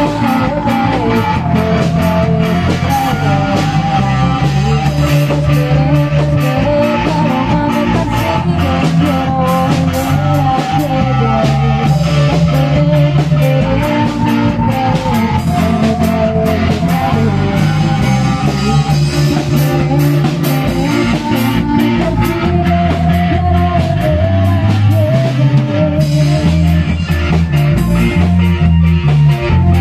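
Rock band playing live: drum kit, bass guitar and electric guitar, with a melody line over a steady beat.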